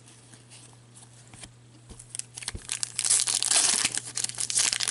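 Wrapper of a 2015-16 Upper Deck Series 2 hockey card pack being torn open. A few faint handling clicks come first. Crinkling and tearing build from about two seconds in and are loudest near the end.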